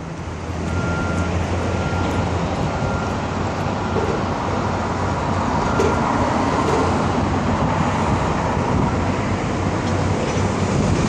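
Steady rumble of road traffic crossing a bridge, with a low, even engine hum over the first few seconds.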